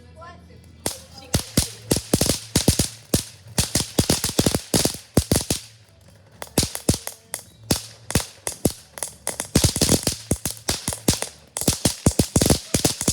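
Small consumer firework (the 'Moon Dance') going off: a rapid crackle of sharp pops and cracks that starts about a second in and comes in dense clusters, with short lulls, throughout.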